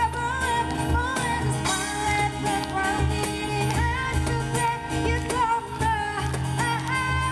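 Live pop song performance: a woman's voice singing a melody over steady instrumental accompaniment, with a light jingling percussion.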